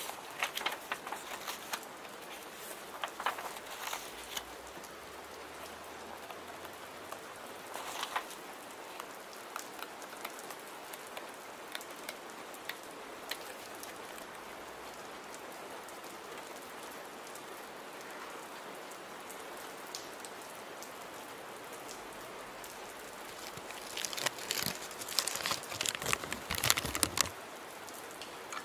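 Steady rain. Over it come occasional soft clicks and rustles, and near the end a longer flurry of paper rustling, the loudest part.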